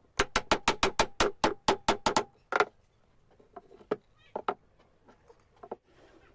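Claw hammer tapping a square hardwood peg into a wooden joint: quick light strikes about five a second for some two seconds, with a faint ring from the hammer head, then one harder blow. A few scattered light knocks follow.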